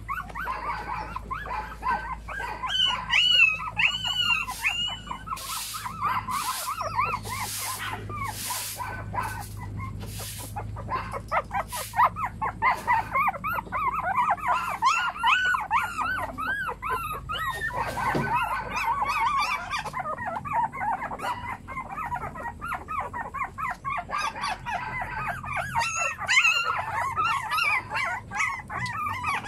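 A litter of young puppies whimpering and squealing, many short, high, rising-and-falling cries overlapping one another without pause. A few short crackly noises cut through them between about six and ten seconds in.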